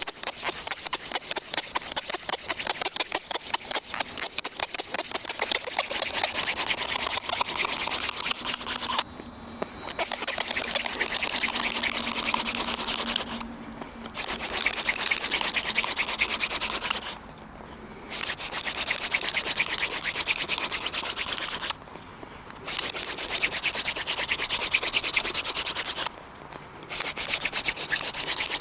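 Cattail hand drill spun rapidly back and forth between the palms in a notched poplar baseboard: a fast, even wooden rubbing, broken five times by breaks of about a second as the hands go back to the top of the drill. The friction is building heat to turn the ground wood dust into an ember.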